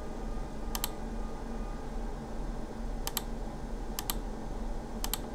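Computer clicks: four short double clicks, each a quick press and release, spaced about one to two seconds apart, over a faint steady hum.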